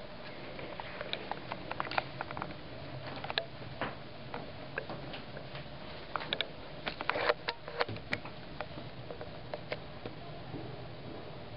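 Scattered soft taps and knocks of someone moving about close to the camera, with a cluster of them about six to eight seconds in, over a steady hiss.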